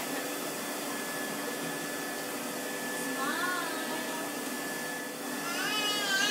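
Vacuum cleaner running steadily with a constant whine, while a cat meows twice over it: a short meow about three seconds in and a longer one near the end.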